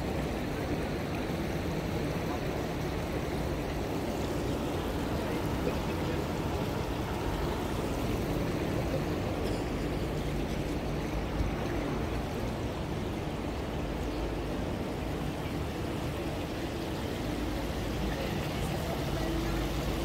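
Steady rush and trickle of water in an outdoor fountain pool.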